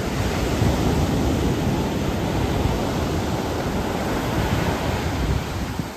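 Ocean surf washing up the beach, a loud, steady rush that drops away near the end.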